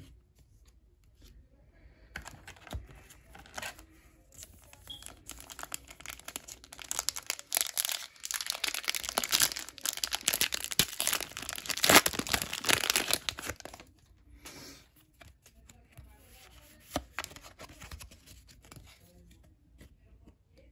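A foil Pokémon booster pack being torn open and crinkled by hand: a dense crackling tear in the middle, loudest near its end, with lighter rustling before and after.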